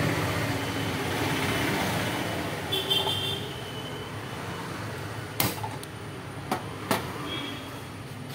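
Gas stove burner being lit with a handheld lighter: sharp igniter clicks, three in the second half, over a steady rushing noise that eases off after a few seconds.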